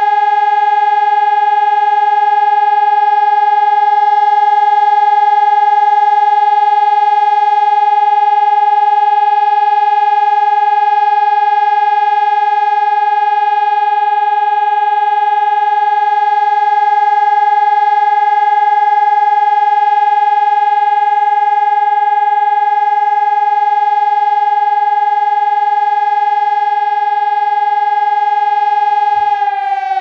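Gibon 1200 electronic siren sounding the steady continuous tone of the siren test signal, held at one pitch. Just before the end its pitch starts to slide down as the test signal ends.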